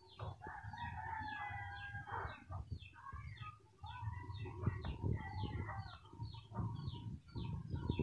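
Faint rooster crowing in two long calls, the first about half a second in and the second around four seconds in, over rapid high chirping repeated several times a second.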